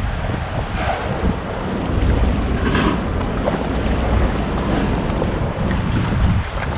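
Wind buffeting the microphone in a steady low rumble, with waves washing on the shore and two brief louder splashes about one and three seconds in.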